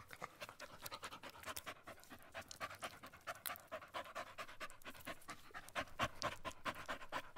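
A West Highland white terrier panting rapidly and evenly.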